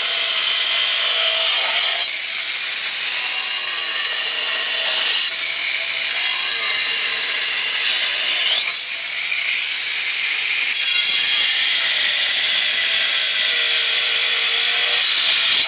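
DeWalt angle grinder cutting through thin flagstone: a loud, continuous high-pitched whine with grinding noise. The motor's pitch dips and climbs back up a few times as the blade bites into the stone and eases off.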